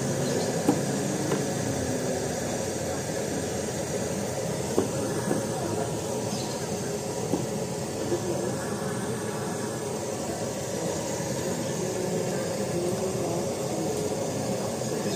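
Busy market hubbub: a steady din of many overlapping, indistinct voices of vendors and shoppers, with a few sharp knocks now and then.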